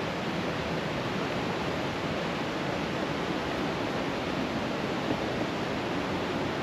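Steady rushing of water falling into a mountain river pool, a small waterfall or cascade running constantly.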